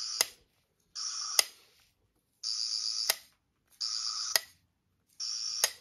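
A toy sonic screwdriver's electronic buzzing sound effect, set off five times in short bursts with gaps between, each burst ending in a sharp click.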